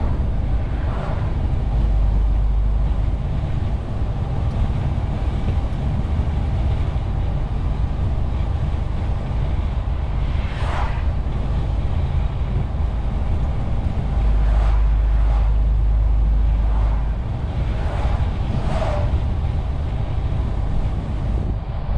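MAN TGX 470 truck's diesel engine running under way, heard from inside the cab as a steady low rumble with road noise. Several brief, sharper sounds rise over it in the second half.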